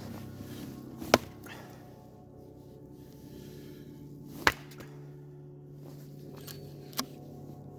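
Axe chopping firewood: three sharp strokes a few seconds apart.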